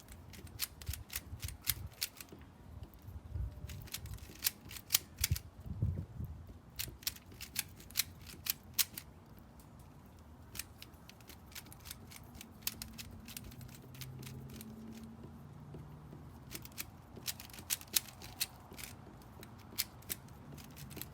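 Plastic 3x3 bubble Rubik's cube being turned fast by hand, its layers clicking in quick irregular runs with short pauses between moves.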